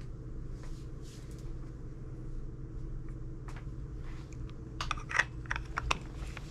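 Small clicks and taps of a lens cap and camera body being handled, with a quick run of clicks about five seconds in, over a steady low hum.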